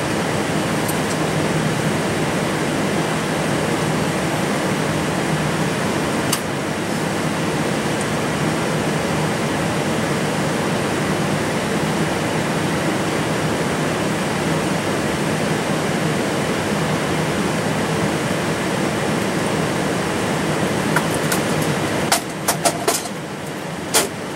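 Steady cockpit noise of an Airbus A320 taxiing at low speed: the hum of its engines at idle mixed with the rush of the air-conditioning. A few sharp clicks come near the end.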